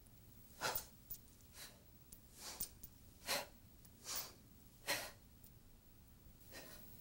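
A series of short, forceful breaths, roughly one a second, taken with Tensegrity arm-swinging movements; the last breath is fainter.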